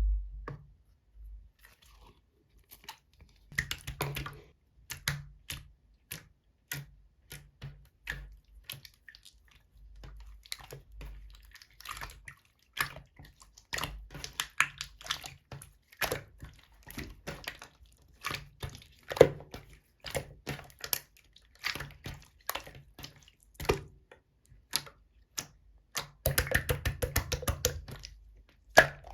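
Clear slime being squished and poked by hand, giving a long run of short sticky clicks and pops, with a fast rattle of pops near the end.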